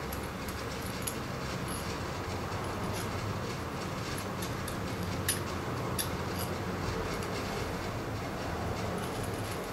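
Steady low hum and noise throughout, with a few sharp metallic clicks as welding pliers scrape spatter off the tip and outside of a welding torch nozzle; the strongest clicks come about five and six seconds in.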